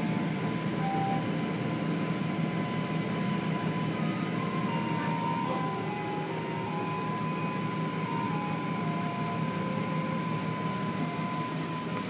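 Automatic tunnel car wash running, heard from inside the car: a steady, even rush of water spray and machinery.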